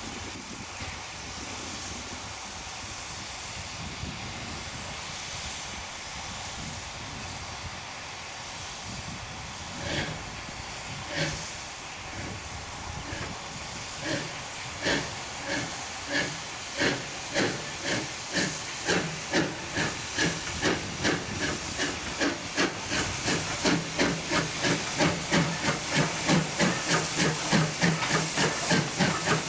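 LNWR Class G2 'Super D' 0-8-0 steam locomotive getting its train under way. At first there is a steady hiss of steam, then a couple of single exhaust beats, then a regular chuffing that quickens to about two beats a second and grows louder as it draws near.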